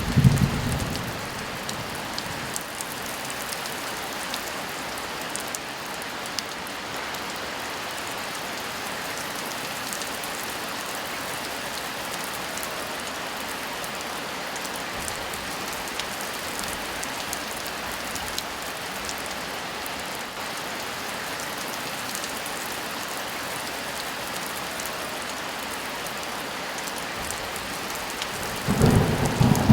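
Heavy rain falling steadily with an even hiss. A low thunder rumble dies away in the first second, and another rolls in about a second before the end.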